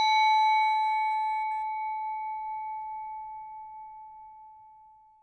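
Reception desk bell ringing out after a single strike: one clear ringing tone that fades away steadily and dies out near the end.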